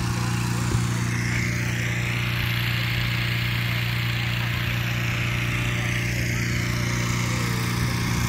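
A small engine runs steadily with an even hum. A rushing hiss swells up about a second in and fades out again after about five seconds.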